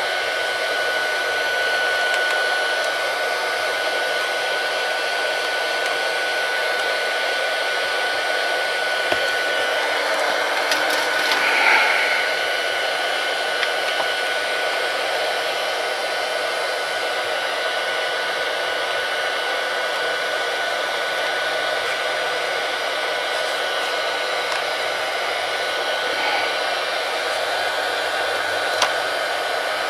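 Hot-air blower running steadily with a faint constant whine, typical of heating a tablet's glass to soften the screen adhesive; a few light clicks come through about midway and near the end.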